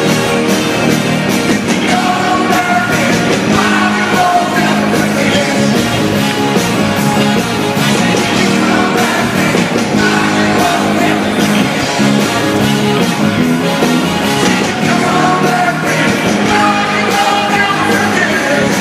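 Live rock band playing at full volume, with two male singers sharing the lead vocal, recorded from the audience on a phone.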